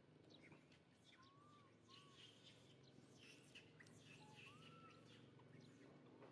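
Near silence: faint high chirping calls and a few short arched whistle-like calls over a low steady hum.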